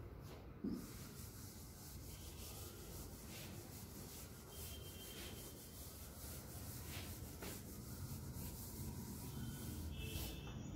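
A blackboard duster wiping chalk off a chalkboard in repeated faint rubbing strokes, with a brief low sound under a second in.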